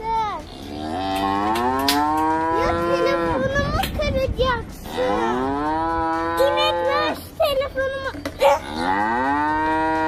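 A cow mooing: three long moos, each rising, holding and then falling in pitch.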